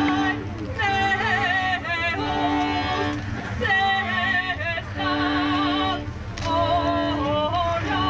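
Music with a singing voice: wavering notes sung with vibrato over long held accompanying tones, in short phrases with brief breaks between them, above a steady low rumble.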